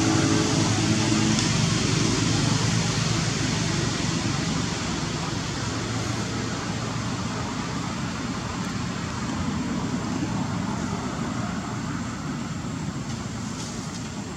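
Steady rushing noise of passing road traffic, with a low engine hum that fades out over the first few seconds.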